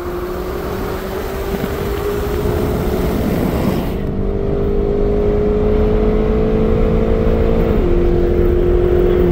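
V8 engines at full throttle in a 60 mph roll race, heard from inside one of the cars with road rumble. The engine note climbs slowly in pitch and drops at an upshift about eight seconds in. A high hiss of wind cuts off sharply about four seconds in.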